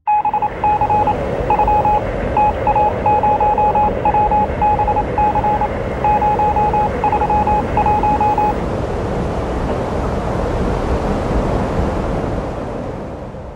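Radio-style static hiss with a series of short and longer electronic beeps at one pitch, in an uneven pattern like Morse code, for about the first eight seconds; the static carries on and fades out near the end.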